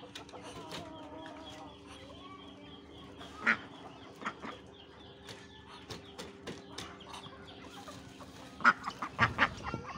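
Backyard poultry and cage birds calling over a steady low hum, with sharp knocks: one loud knock about three and a half seconds in and a quick run of them near the end.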